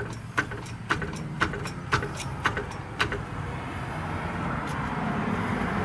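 Hydraulic floor jack being pumped by its long handle, giving a run of sharp clicks about two to three a second for roughly three seconds. After that a passing motor vehicle's noise slowly swells.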